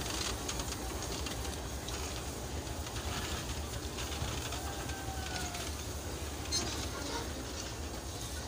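Passenger train at a station: a steady low rumble with faint metallic clicks.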